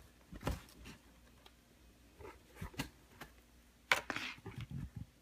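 Sneakers being handled and turned over to show the soles: scattered light knocks and rubbing, with a sharper knock about four seconds in followed by a brief rustle.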